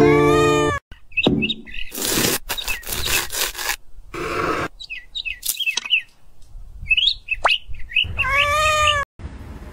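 Short, high chirping sound effects scattered through, with a meow-like call at the start and another near the end. In the middle comes the scraping of a serrated knife cutting out the flesh of a Hami melon.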